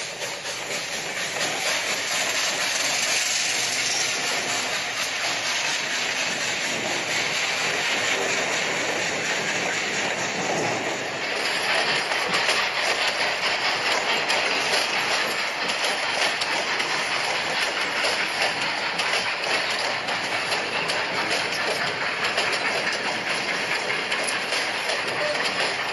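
Model train rolling past on layout track: a steady rolling hiss with rapid clicking of the small wheels over the rail joints.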